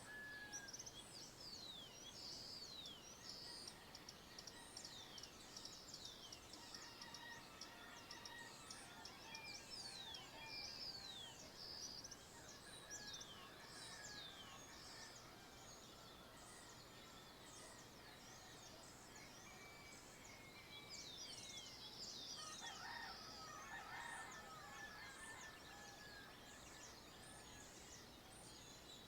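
Countryside dawn chorus: many birds giving short, high, downward-sweeping chirps over and over, with some thin steady whistles lower down. About 22 seconds in, a denser cluster of lower calls joins them.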